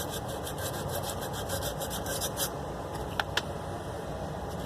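Sandpaper scrubbing back and forth in quick, even strokes on a painted water supply pipe, taking the paint off down to bare metal for soldering. The strokes stop about two and a half seconds in, followed by two sharp clicks.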